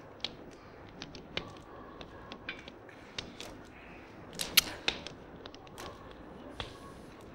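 Scattered short clicks and taps over a quiet background, with a cluster of sharper ones a little past halfway.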